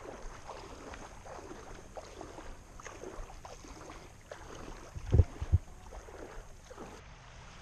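Shallow water lapping and sloshing close by, in an irregular ripple, with two short low thumps about five seconds in.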